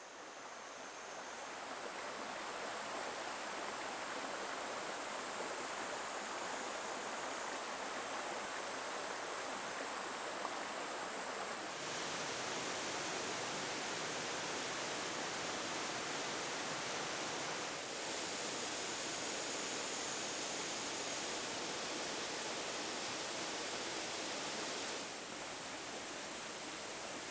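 Mountain stream rushing over rocks in a shallow riffle, a steady rush of water that fades in at the start and shifts slightly in level a few times.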